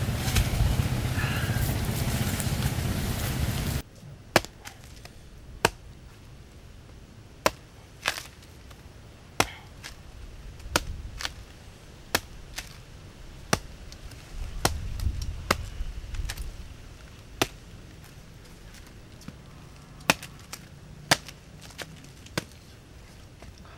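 Knife blade chopping into the husk of a green coconut: sharp, single hacks at an irregular pace, often a second or two apart. The first few seconds hold a steady rushing noise that cuts off abruptly about four seconds in.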